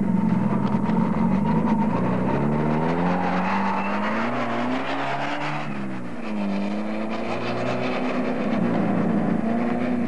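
Small 4x4 off-road race car's engine pulling away under acceleration. The pitch holds steady at first, climbs for a few seconds, dips about six seconds in, then holds and starts to climb again near the end.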